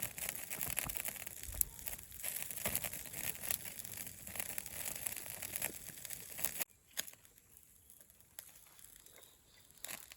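Close, dense crinkling and rustling of thin material being handled, such as a wrapper or paper. It stops abruptly about two-thirds of the way through, leaving only a few faint clicks.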